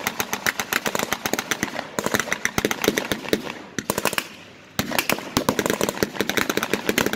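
Reenactment battle gunfire with blank rounds: dense, rapid, overlapping shots several to the second, with a brief lull around the middle before the firing picks up again.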